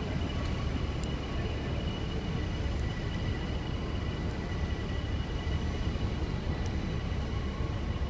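Steady city rumble of traffic and trains with a faint high whine, over which a lock pick gives a few faint clicks as it works the pins of a brass Kryptonite padlock.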